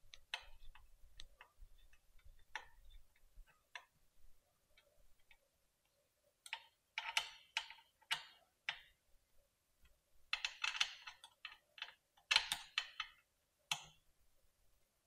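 Light metallic clicking and ticking from hand tools and small bolts, nuts and washers as an e-bike's rear hub motor is fitted back into the frame. The clicks come irregularly at first, then in dense rapid clusters about halfway through and again near the end.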